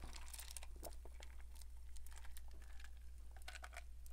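A person drinking dark soda from a plastic cup close to the microphone: faint, irregular crackling clicks, with a low steady hum underneath.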